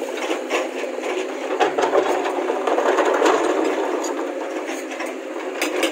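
Hydraulic crawler excavator digging in broken rock: the engine runs under a dense clatter and scrape of stones against the bucket, with many sharp knocks throughout.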